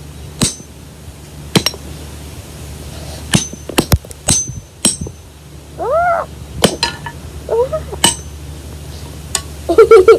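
Hammer striking a rock, about ten sharp clinks at uneven intervals, with a quick cluster of strikes about four seconds in.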